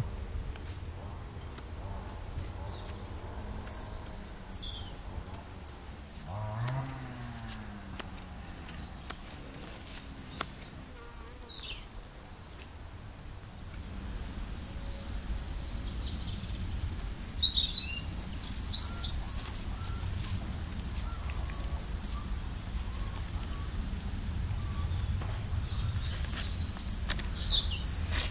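Small songbirds chirping and calling on and off, loudest in a cluster of chirps about two-thirds of the way through and again near the end, over light clicking and rustling of nettle stems being picked by hand into a plastic bucket.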